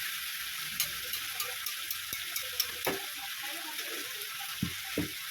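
Chicken curry with potatoes and tomatoes sizzling in a pan as it is stirred, a steady hiss with scattered clicks and a few knocks of the spoon against the pan.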